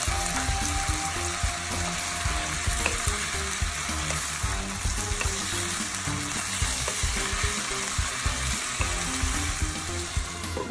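Chicken wings and vegetables sizzling in a hot wok with a little water just added, stirred with a wooden spatula. Background music with a simple stepping melody plays underneath.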